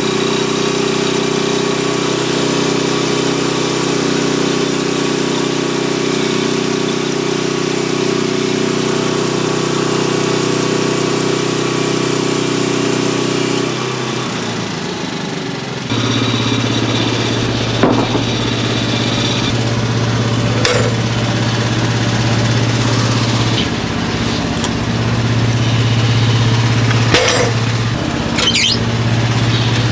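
Frontier band sawmill's engine running steadily; about 14 seconds in its note changes and it settles at a different steady pitch, with a few sharp knocks over it.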